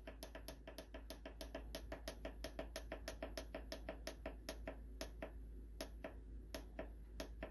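A quick run of short clicks from the control panel of a T-fal electric pressure cooker as its time button is pressed repeatedly to set the pressure-cook time to 10 minutes. The clicks come about four to five a second at first, then thin out to a few spaced ones near the end.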